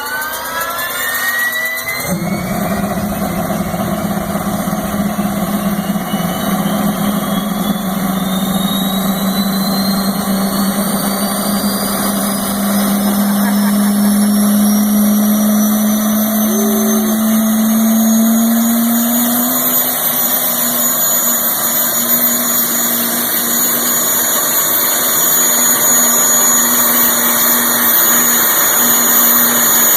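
Jet turbine engine in a Porsche starting and spooling up. Its whine rises in pitch for about twenty seconds over a steady lower drone that comes in about two seconds in, then holds as a steady high whine.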